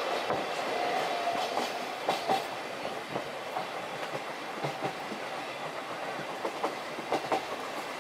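Steam-hauled 12-series passenger coach rolling along the track, its wheels clicking irregularly over rail joints under a steady running rumble, heard from inside the coach.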